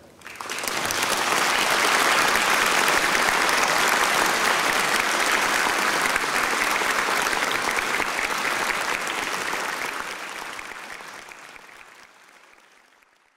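Concert-hall audience applauding. The applause breaks out all at once, holds steady for several seconds and dies away over the last few seconds.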